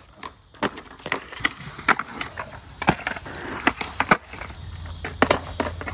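Skateboard on smooth concrete: urethane wheels rolling, with a string of sharp wooden clacks from tails popping and boards landing during flat-ground flip tricks.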